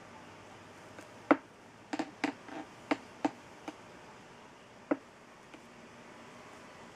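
Irregular sharp clicks and taps, about eight in four seconds, the loudest a little over a second in, from a circular knitting needle being worked through a knitted cord while picking up stitches.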